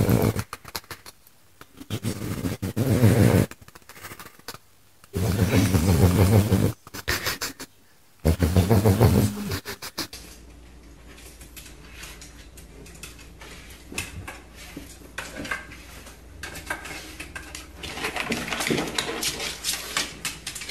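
A pug growling in play in four loud bursts of a second or two each. After that comes a quieter stretch of faint clicks and rustling.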